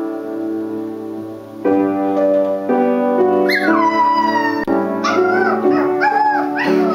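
Seven-week-old Australian terrier puppy howling along to piano chords. About halfway in a high howl slides down in pitch, then a run of shorter wavering howls follows over the piano.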